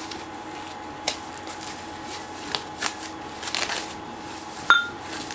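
Plastic packaging rustling and crinkling in irregular bursts as a billet fuel rail is unwrapped by hand, with one short sharp click near the end.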